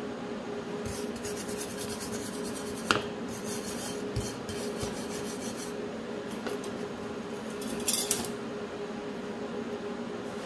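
Hand wire brush scrubbing a cast aluminum part on a steel table: a run of quick rasping strokes lasting about five seconds, with one sharp knock partway through. A louder, brief scrape near the end.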